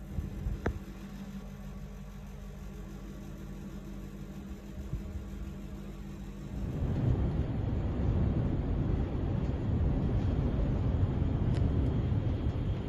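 Storm wind rumbling on the microphone. About two-thirds of the way through it jumps to a louder, rougher rush.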